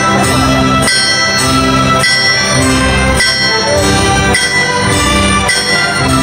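Live orchestra playing, with ringing metal strikes on the beat, nearly two a second; the strikes are most likely hammer blows on an anvil played as percussion.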